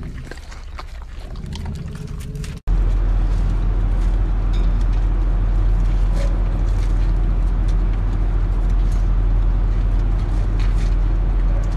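A husky eating scraps of food, small crunchy clicks of chewing. About two and a half seconds in, an abrupt cut brings in a loud steady low rumble that covers the rest, with only a few faint clicks as a husky licks and gnaws a large round treat.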